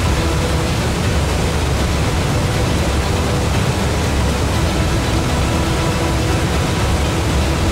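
Steady, loud rush of floodwater pouring through a broken wooden dam, with a deep rumble underneath.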